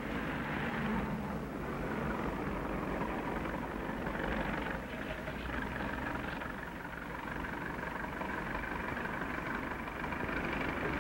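Street traffic: a steady wash of cars and other motor vehicles running on a city street.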